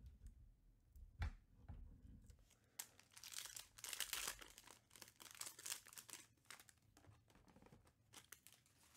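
Shiny foil wrapper of a Panini Prizm UFC trading-card pack being torn open and crinkled by hand. There is a single knock about a second in; the loudest tearing and crackling comes about three to five seconds in, with lighter crinkles near the end.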